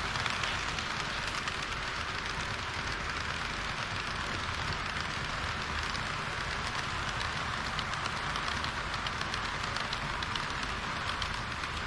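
HO-scale model train running on the layout track: a steady rattling rush of small wheels and motor, flecked with fine rapid ticks.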